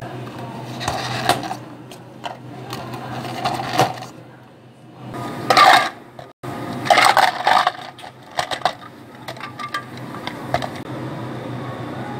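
Ice cubes clattering into clear plastic cups and cups knocking on a counter, in loud bursts of sharp clicks, over a steady low hum.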